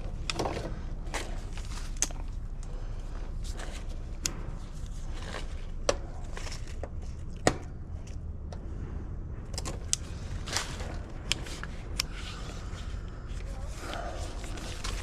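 Irregular small clicks, ticks and scrapes of hand tools and wires being handled while rewiring an AC condenser, over a steady low rumble.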